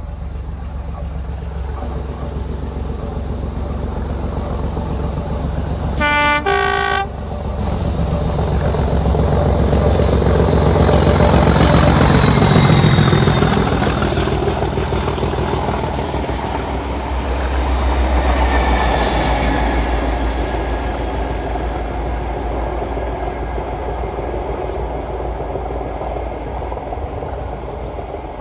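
Class 37 diesel locomotive sounding a short two-tone horn, low note then high, about six seconds in. It then passes under power hauling coaches, its English Electric V12 engine growing loud as it goes by and fading away with the clatter of the coaches' wheels.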